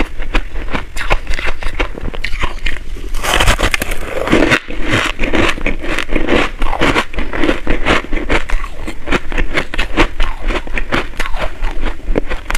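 Close-miked crunching of crushed ice: a metal spoon scraping and scooping the packed ice, and mouthfuls of it chewed with dense, crackling crunches.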